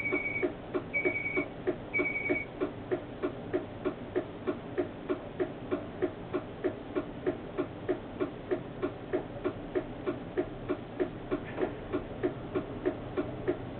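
Steady, even clicking about three times a second inside a tram driver's cab. A high beep sounds once a second over the first two seconds or so, then stops.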